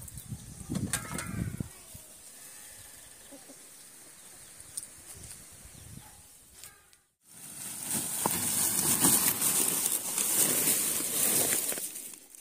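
Water scooped with a bowl from a metal pot and poured out, with splashing in the first second and a half. After a short break about seven seconds in, a loud, rough, steady hiss follows and fades near the end.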